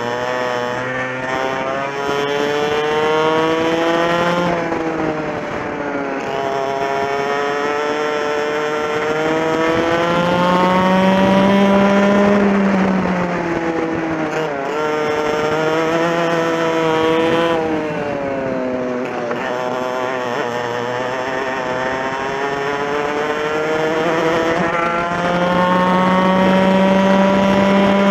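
On-board sound of a TKM two-stroke kart engine racing. The revs climb in long rises and fall back about three times, as the kart accelerates out of corners and drops off when the driver lifts and brakes.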